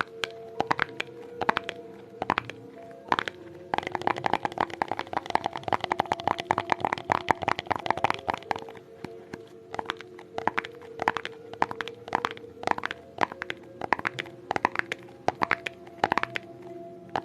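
ASMR tapping: quick, irregular taps and clicks on hard objects, a rapid flurry between about four and eight seconds in, over a steady sustained background tone.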